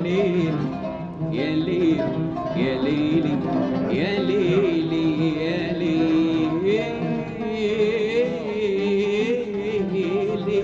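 Background music: an Arabic-language song with a wavering sung melody over plucked-string accompaniment and a steady instrumental bed.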